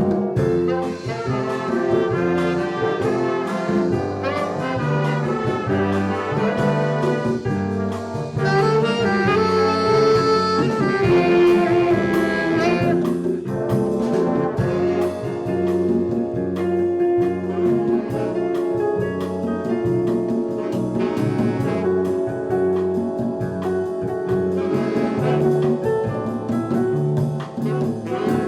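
Jazz ensemble playing, with trombones and trumpets to the fore, saxophones, and a repeating bass line underneath.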